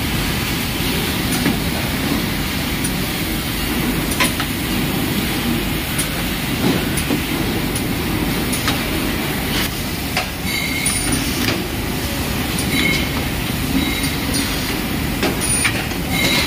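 Pneumatic clamp fixtures working: sharp clicks and brief air hisses now and then as the air cylinders and valves switch the clamps. Under them runs a steady low rumble of workshop machinery.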